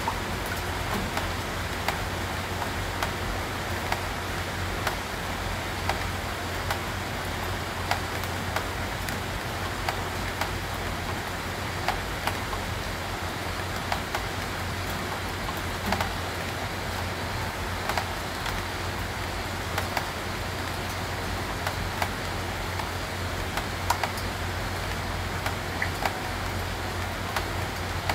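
Steady rain, with scattered drops tapping sharply and irregularly close by, over a low steady rumble.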